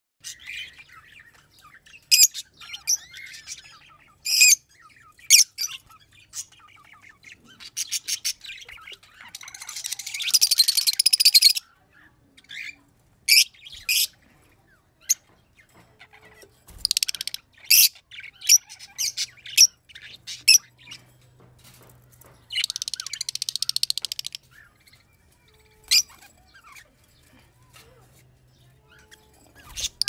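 A group of caged Fischer's lovebirds calling: sharp, high chirps and squawks come one after another. Two longer runs of rapid chatter come about ten seconds in and again near twenty-three seconds.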